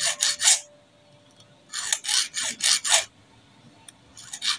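Small flat hand file rasping across the metal teeth of an overlock machine's feed dog in quick short strokes, about four a second, in three bursts with pauses between: sharpening teeth worn flat by presser-foot pressure.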